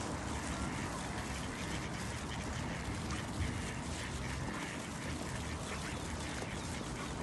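Mother duck quacking on the water, over a steady outdoor hiss.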